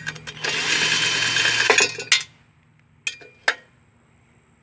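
Cordless drill with a socket adapter running for about a second and a half as it spins out an 8 mm muffler bolt on a lawnmower engine, then a few metallic clinks of the loosened bolt and parts.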